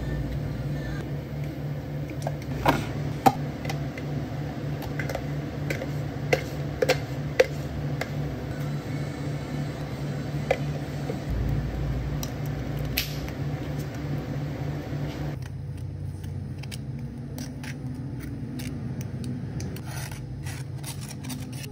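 Café counter work: scattered light clicks and taps of utensils and containers over a steady low machine hum, the taps falling away after the first half.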